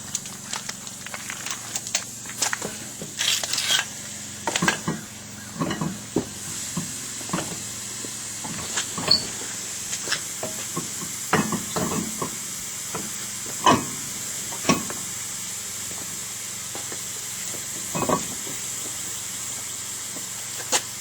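Irregular metallic clinks and knocks from hand work on a car wheel, as the wheel goes back onto the hub and the lug nuts are put on, over a steady background hiss.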